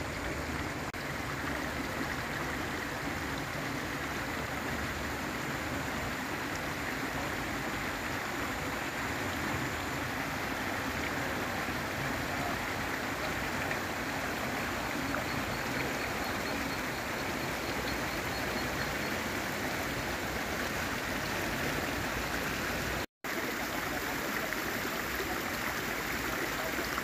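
Steady rushing of flowing water, an even noise without rhythm, which cuts out for an instant near the end.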